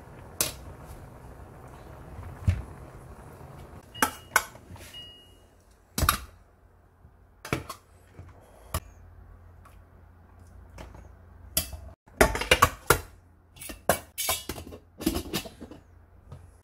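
Stainless steel steamer pot, lid and metal utensils clinking and clanking as steamed corn and peanuts are lifted out and moved, with separate knocks at first and a quick run of clatters about twelve seconds in. A faint low hum sits underneath.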